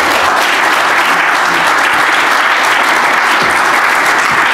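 Audience applauding, steady and sustained, at the end of a keynote speech.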